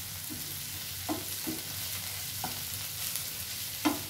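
Ivy gourd and onion frying in mustard oil in a frying pan, sizzling steadily, while a spatula stirs it and knocks and scrapes against the pan four or five times; the sharpest knock comes near the end. The fry is cooked through and is frying on a medium flame.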